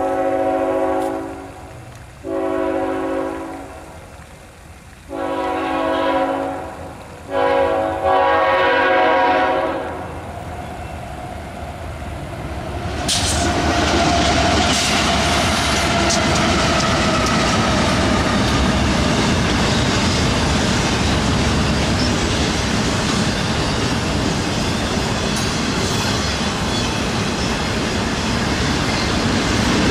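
BNSF diesel freight locomotive's horn sounds four long blasts, a chord of several notes, with the last blast the longest. About thirteen seconds in, the locomotives pass close by and the train's cars follow with a steady, loud rolling noise that keeps on.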